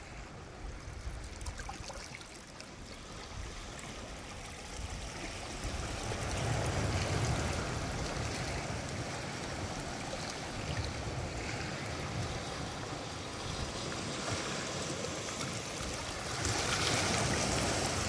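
Sea waves washing in over shore rocks, a steady rush of water that swells louder about six seconds in and again near the end.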